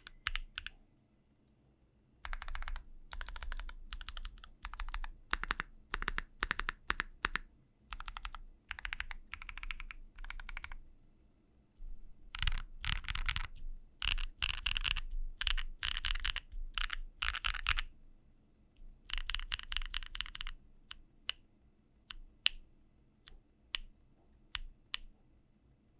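Typing on a mechanical keyboard with HMX Reze tactile switches (PA12 top housing, P4 bottom housing, H2 stem) in an aluminium plate with no foam, giving a deep-sounding clack. Keys are struck in quick runs of strokes with short pauses between, and then slowed to single keystrokes about half a second apart near the end.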